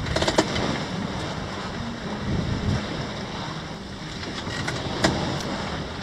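Wind buffeting the microphone over the rush and splash of waves along a sailboat's hull under way, with a few brief louder surges.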